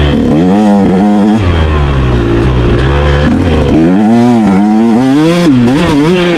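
Motorcycle engine at high load, its pitch climbing and falling several times as the throttle is opened and closed, with a steadier low drone between the runs.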